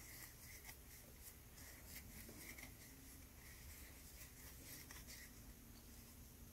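Near silence with faint, repeated soft scratches of a crochet hook drawing yarn through stitches.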